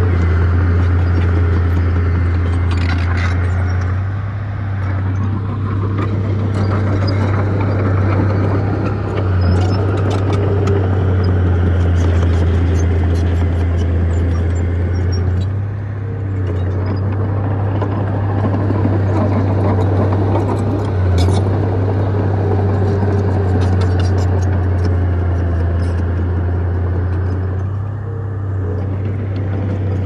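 Heavy diesel engine of earthmoving machinery running under load, with a steady low drone and scattered clicks and rattles over it.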